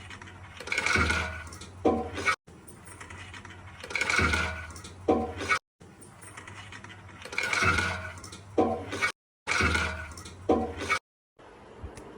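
Water rushing and sloshing in four short swells, each followed by a sharp knock and cut off abruptly.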